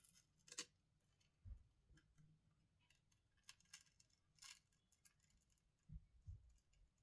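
Faint, scattered clicks and scrapes of a plastic pry tool working under a phone's heated back glass, with a few soft low bumps.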